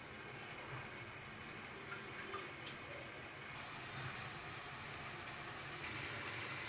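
Onion and tomato masala softly simmering and sizzling in a frying pan under a glass lid, a faint steady hiss that grows a little louder near the end.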